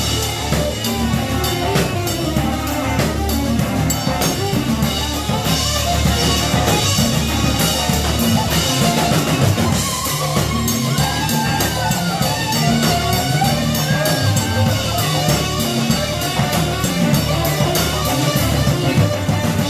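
Music with a drum kit keeping a steady beat under melodic instruments.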